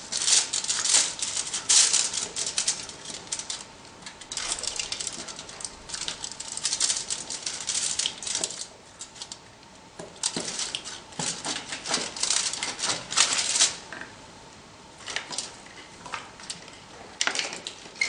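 Hands fitting a plastic tube onto a small water pump in a foil-wrapped container: crinkly rustling of aluminium foil and small clicks of handling, in irregular bursts with short lulls.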